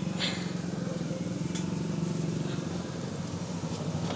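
A steady low hum of an engine running in the background, with two light clicks of metal parts or tools, one just after the start and one about a second and a half in.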